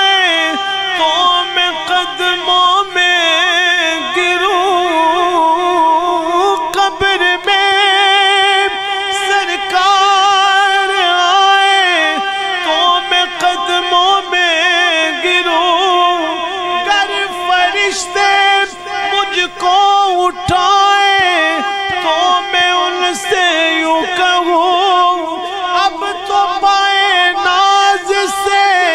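A man singing a naat unaccompanied into a microphone, drawing out long melismatic notes with a fast, wide vibrato and only brief breaths between phrases.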